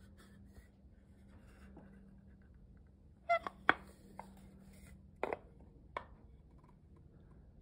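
Two wooden boards of a locking rabbet joint knocking together as they are fitted and worked by hand: a few short, sharp wooden clacks about three and a half seconds in, and again near five and six seconds, over a faint steady hum.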